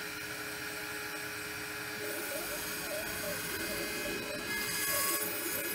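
Spindle of a DIY 5-axis CNC router running with a steady whine and hiss as its long cutter carves XPS foam, while the axis motors' tones rise and fall as the head moves. A louder hiss comes about five seconds in.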